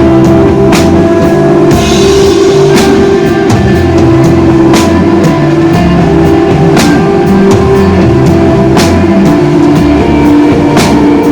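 Live rock band playing loud: electric guitar holding sustained notes over bass and a slow drum beat, with drum and cymbal hits about every one to two seconds.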